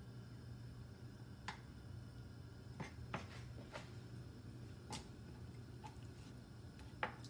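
Faint, irregular sharp clicks and taps of a knife on a cutting board as fat is trimmed from raw pork chops, six or seven in all, over a steady low hum.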